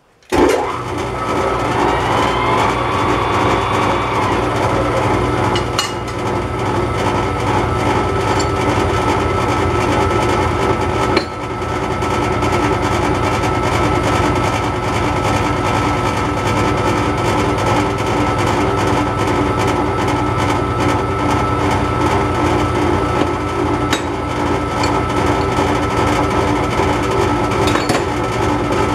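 MAS metal lathe switched on, its motor and gearing spinning up over the first few seconds, then running steadily at speed with a constant hum and whine, with no cutting yet.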